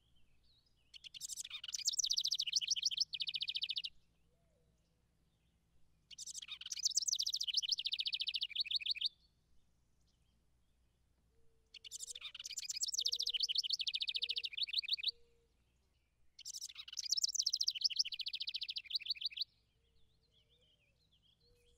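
House wren singing four songs, each about three seconds long and spaced about five seconds apart. Each song is a bubbling run of rapid high notes that ends in a fast, even trill.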